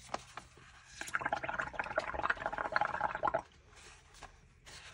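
Bubbling from a child blowing through a drinking straw into a tub of watery ink bubble mixture. It starts about a second in, runs for about two and a half seconds, and stops abruptly.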